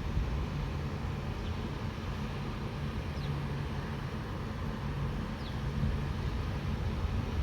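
Steady low diesel engine hum of an approaching locomotive.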